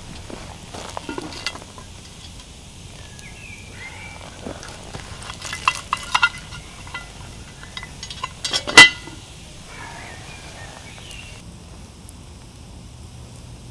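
A frying pan being handled at the campfire: a few light metal clinks about six seconds in, then a sharp clank, the loudest sound, near nine seconds.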